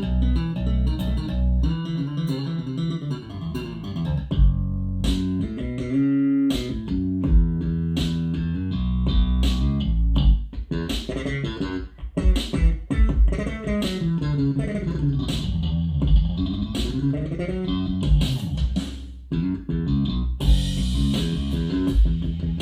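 Music with bass guitar, guitar and drums playing over a hi-fi system with a REL subwoofer, heard in the room. The subwoofer sits directly on the floor with its isolator pad removed, which gives more bass with a phasiness to it.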